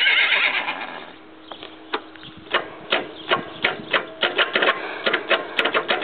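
A horse whinnying, a shaky pitched call that fades out about a second in, followed by a run of sharp, irregular knocks, two to four a second, over a faint steady low hum.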